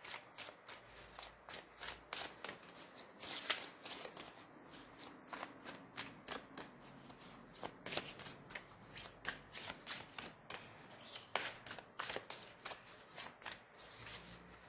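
A tarot deck being shuffled by hand: an irregular run of crisp card flicks, several a second.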